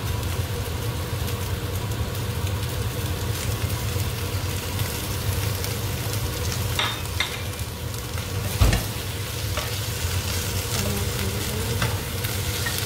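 Chicken livers, garlic and onions sizzling in a pot on a gas hob, with a spatula stirring and scraping and a steady low hum underneath. A few short knocks, the loudest a single thump about two-thirds of the way through.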